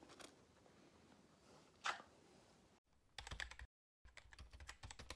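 Rapid typing clicks, like keys of a typewriter or keyboard, in two quick runs starting about three seconds in, then cutting off suddenly. Before them, faint room noise with a single sharp knock about two seconds in.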